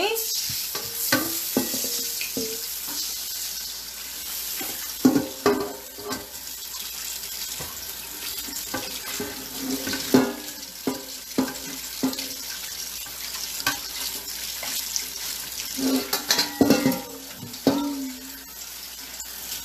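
Hot oil sizzling in a wok, a steady hiss, with several knocks and scrapes of utensils against the pan.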